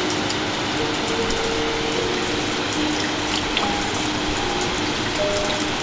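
Steady rush of white water tumbling over rocks, with a slow melody of soft, held notes laid over it.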